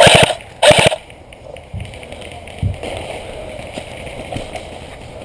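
Two short bursts of automatic fire from an airsoft electric gun, each a quick string of rapid clicks, about half a second apart at the very start.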